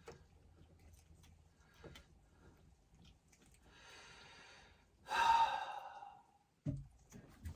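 A man breathing in and then letting out a long, audible sigh about five seconds in, with a few faint clicks of wiring work around it.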